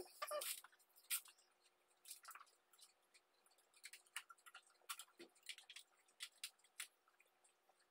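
Aluminum foil tape and its paper backing crinkling and crackling in short, faint bursts as the tape is peeled off the roll and handled.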